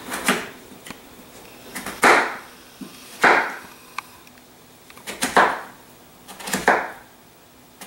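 A kitchen knife slicing through a raw russet potato and striking the cutting board, five separate cuts one to two seconds apart.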